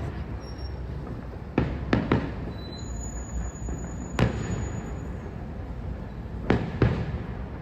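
Fireworks display shells bursting with sharp bangs: a quick pair about 2 s in, a single bang about 4 s in and another pair near the end, over a steady low rumble.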